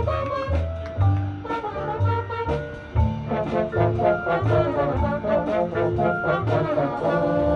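Marching band playing: a brass section over a low brass bass line about twice a second, with drum hits, swelling into a held full-band chord near the end.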